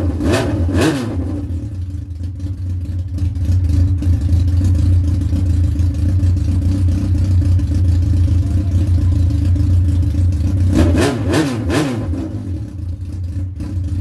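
Yamaha R1 inline-four engine running steadily after a repair for engine knocking, with brief throttle blips near the start and again about eleven seconds in.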